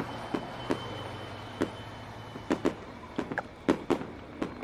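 Fireworks going off overhead: a string of sharp pops and bangs at irregular intervals, a fraction of a second to about a second apart, over a low steady hum.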